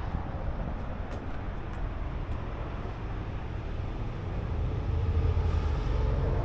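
Low rumble of a motor vehicle's engine with road noise, growing louder about five seconds in.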